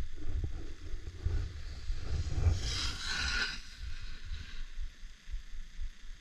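Wind buffeting an action camera's microphone on a descent over snow, with a hissing scrape of edges across the snow in a turn about two and a half seconds in, lasting about a second.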